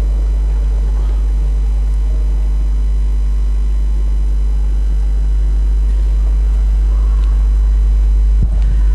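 A loud, steady low hum with fainter even overtones above it, unchanging throughout.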